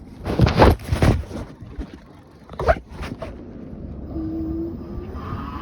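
A few loud bumps and rustles of phone handling, then from about four seconds in the Lectric Xpedition e-bike's hub motor starts a steady whine as the bike gets moving. The motor noise is much louder than the rider thinks it should be.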